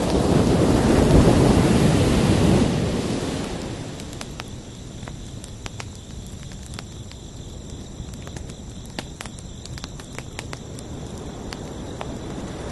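Ocean wave breaking and washing in, swelling over the first few seconds and then fading to a lower, steady wash. Crickets trill steadily underneath.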